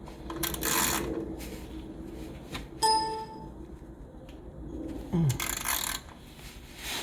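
A 3/8 ratchet on a cap-type oil filter wrench working against a tight, stuck oil filter: rasping metal-on-metal scraping, with one sharp ringing metallic clink about three seconds in.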